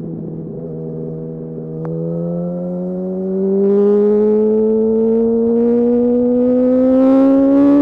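2008 Yamaha R1's inline-four engine accelerating through a gear, its pitch climbing steadily and growing louder about halfway in as the throttle opens further.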